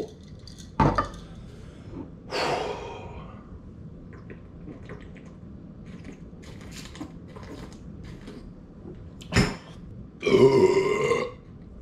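A man drinks beer, with two sharp knocks, one soon after the start and one about nine seconds in, then lets out a long, loud belch just after ten seconds.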